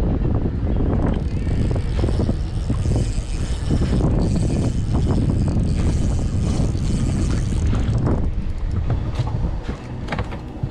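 Wind buffeting the camera's microphone: a heavy, uneven low rumble, with a few sharp clicks near the end.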